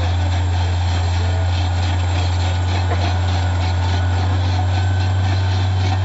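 Caterpillar D10T bulldozer's diesel engine running under load with a steady deep drone as the machine pushes rock.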